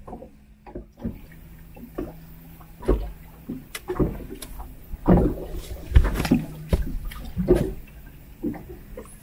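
Irregular knocks and thumps in an inflatable PVC boat, as things are moved and handled aboard. They are loudest and most frequent from about three to eight seconds in.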